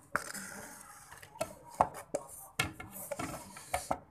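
Metal spoon scraping and clicking against a plastic food container and a plate, scooping sauce onto rice: a scratchy scrape at the start, then several sharp, irregular clicks and knocks.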